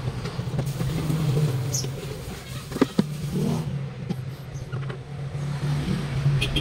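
An engine running steadily with a low hum, while the plastic air cleaner housing is fitted back on by hand, with two sharp clicks just under three seconds in.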